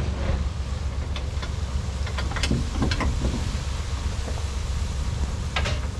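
Tractor engine running with a steady low rumble, with scattered knocks and short squeaky creaks, most of them between about two and three and a half seconds in and again near the end.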